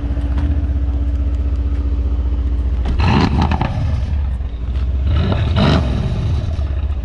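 Twin-turbo V8 of a Mercedes-AMG C63 S fitted with upgraded turbos, idling with a deep steady rumble. It is revved twice, briefly, about three seconds in and again about five and a half seconds in.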